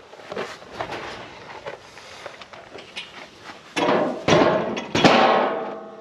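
Metal gate and wire panels of a livestock scale crate rattling and clanging as they are handled, with two louder clangs about four and five seconds in that ring on briefly.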